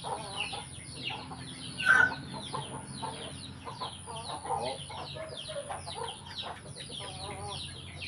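Chickens clucking, with many short, high, falling peeps throughout, and one short, sharp, much louder sound about two seconds in.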